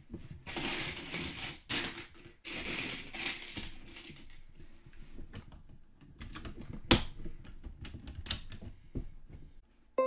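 Plastic bags of Lego pieces crinkling and Lego bricks clicking and clattering as they are handled. The loudest sound is a single sharp click about seven seconds in.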